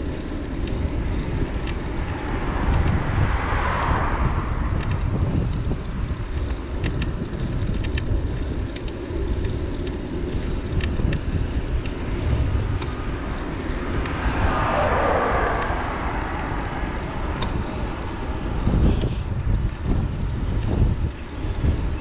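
Wind rumbling on the microphone of a moving bicycle. Vehicles pass twice, about four seconds in and again around fifteen seconds in, the second with a falling pitch.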